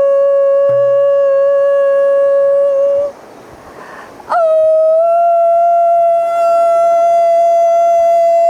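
Background music of long held notes: a steady note breaks off about three seconds in, and after a breathy pause of about a second a slightly higher note swoops in and is held.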